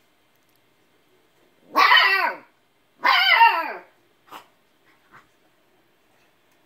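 Husky puppy giving two loud yelping barks about a second apart, each sliding down in pitch: a puppy protesting at a cat that won't play.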